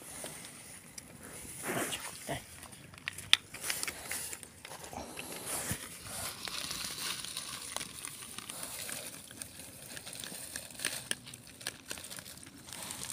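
Cats eating wet cat food from a foil tray and a small bowl: soft wet chewing and lapping with scattered small clicks, and one sharper click a few seconds in.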